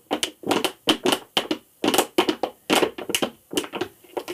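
Thin clear plastic drinks bottle crinkling and crackling as it is handled and squeezed: a quick, uneven run of sharp crackles, about four a second.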